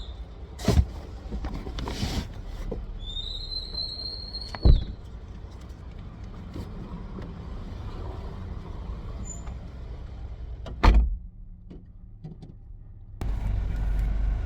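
Road vehicles running with a steady low rumble, broken by a high squeal of a few seconds and several sharp knocks; a louder steady rumble takes over near the end.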